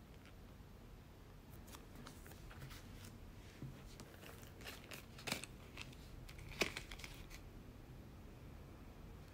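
Thin clear plastic packaging crinkling and crackling faintly in the hands, with a couple of sharper crackles about halfway through.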